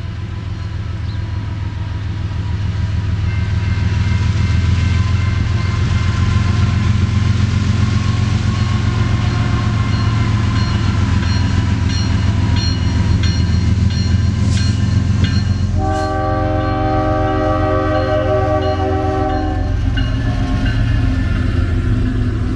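Diesel freight locomotives approaching and passing with a heavy low engine rumble that builds as they near, followed by the rolling of empty covered hopper cars. About sixteen seconds in, the locomotive horn sounds one steady multi-tone blast of about four seconds.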